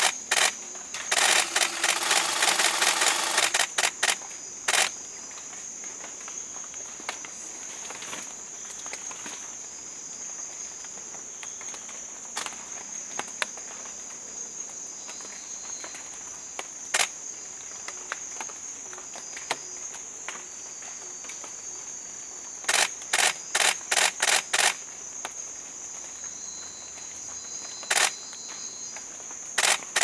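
Bursts of camera shutter clicks over a steady high insect chorus: a long rapid run of shutter clicks early on, a cluster of quicker bursts about three-quarters of the way through, and a few single clicks between.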